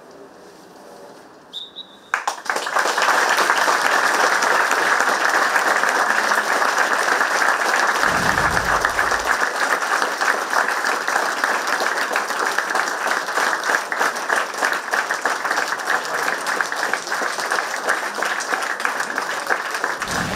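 Hushed crowd, a brief high whistle blast, then a football crowd breaks into sustained applause, marking the end of a minute of silence.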